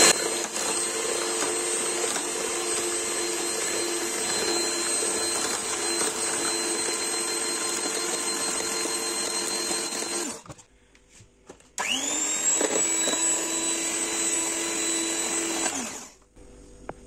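Electric hand mixer running at low speed, its beaters whisking eggs and sugar into a pale foam: a steady motor whine. It cuts out about ten seconds in, spins up again with a rising whine a second or so later, and stops near the end.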